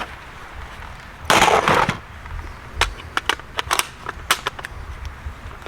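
Handling noise from an AR-15-style 5.56 rifle being reset between reload drills: a loud clatter about a second and a half in, then a quick series of sharp metallic clicks.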